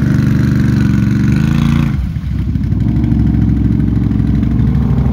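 Can-Am ATV engine revving hard as the quad works through deep greasy clay mud. About two seconds in it drops back suddenly to a lower, steady idle.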